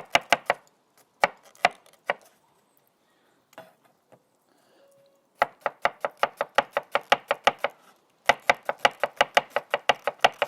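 Knife rapidly chopping an onion on a cutting board, about six quick strokes a second, in three runs with a pause of a few seconds after the first.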